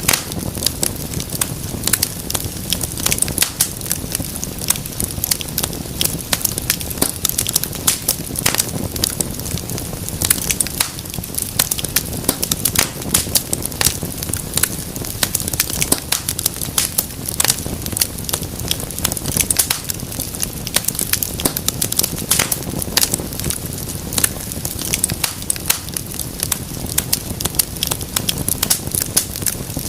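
Wood fire crackling and popping steadily, a dense stream of sharp snaps over a low hiss of burning.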